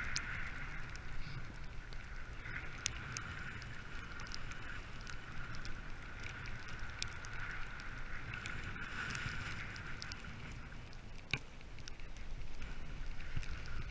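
Dog sled runners sliding over snow with a steady hiss, over a low wind rumble on the sled-mounted camera, broken by a few sharp clicks, the loudest a little before the end.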